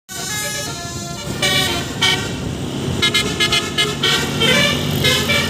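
Basuri telolet multi-tone bus horn on a coach's roof horns, playing a melody of held notes that change pitch every fraction of a second, with a quick run of short notes about halfway through. The bus engine runs underneath.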